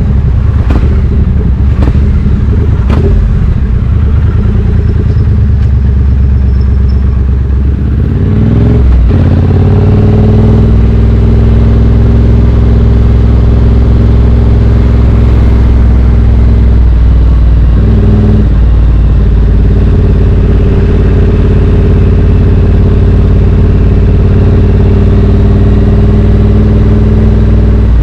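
Triumph Street Twin 900's parallel-twin engine through British Customs slash-cut exhaust tips while riding: a low, uneven rumble for the first several seconds, then the revs rise about nine seconds in and the engine holds a steady drone, with a brief dip a little past the halfway point.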